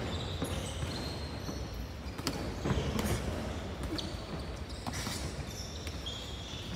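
Boxing sparring in a large gym hall: scattered thuds and knocks of punches and footwork, with a few brief high shoe squeaks on the floor, echoing over a low hall rumble.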